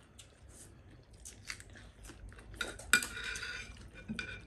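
Spoon clinking and scraping on a plate, with small clicks of eating; the loudest clink comes about three seconds in, followed by scraping.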